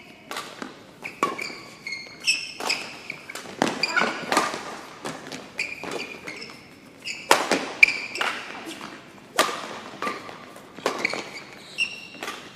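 Badminton rally in an indoor hall: rackets strike the shuttlecock with sharp, repeated hits, and court shoes squeak briefly on the floor between shots.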